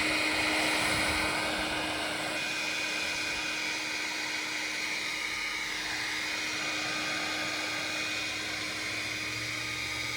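Hand-held blow dryer running steadily on high, a held motor whine over a rush of airy hiss.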